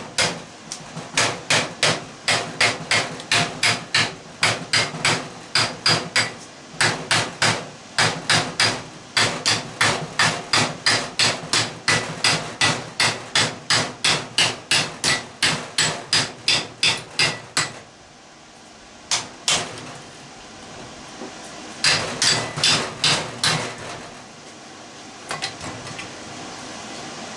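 Hammer blows struck at an angle on a hot tub pump's electric motor to knock its housing apart, an even run of about two to three blows a second. About two-thirds of the way in they stop, then come back in a few shorter bursts.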